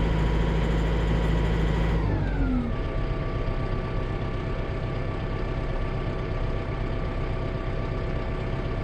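A vehicle's engine running steadily, then throttled down about two seconds in and settling into a steady idle.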